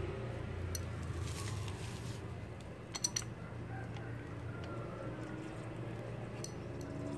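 A wrench clinking and tapping against the metal fittings of a pressure washer's pump head. There are a handful of sharp metallic clicks, two close together about three seconds in, over a low steady hum.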